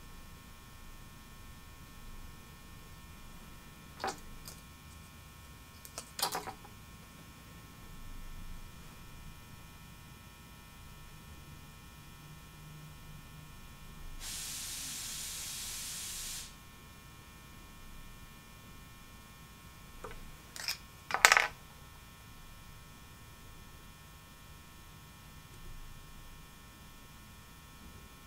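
Quiet room tone with a faint steady electrical hum, broken by a few small sharp clicks from hands handling fly-tying materials and tools at the vise, the loudest a pair of clicks about three-quarters of the way through. About halfway through, a steady hiss lasts about two seconds.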